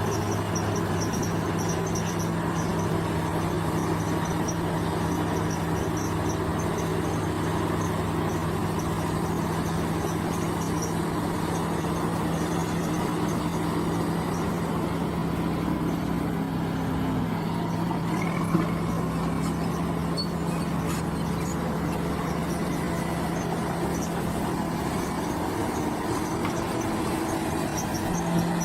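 Bulldozer's diesel engine running at a steady speed, with one sharp knock about two-thirds of the way through. Insects chirp in a high pulsing band behind it.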